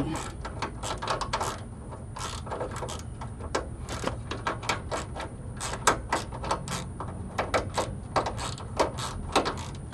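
Irregular plastic clicks and rattles of a wiring-harness connector for a front airbag sensor being worked by hand, about two or three small clicks a second.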